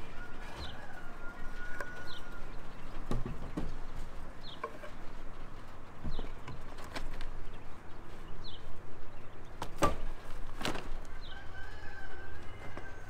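Wooden 2x4 boards knocking and clunking as they are handled and set down across a wooden frame, with two louder knocks about ten seconds in. Short high bird chirps repeat every second or two.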